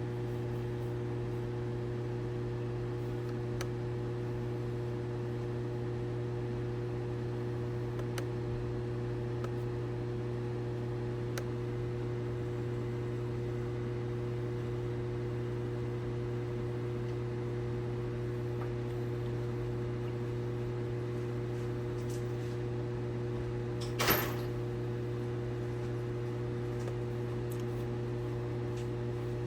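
Steady low electrical or mechanical hum, with one sharp click or knock about 24 seconds in.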